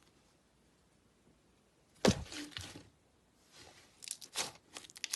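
Slime being handled: a sharp thud about two seconds in, then a run of quick crackling, popping clicks as it is pressed and stretched.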